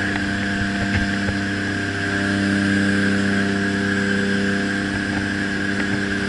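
Aircraft engine drone heard from inside the cabin of a skydiving jump plane, steady and even-pitched with rushing air, swelling slightly about two seconds in, with a few light clicks of gear.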